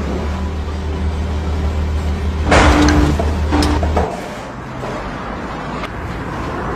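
A low rumble like a running engine, with a loud noisy burst about two and a half seconds in and a few sharp clicks; the rumble drops away at about four seconds.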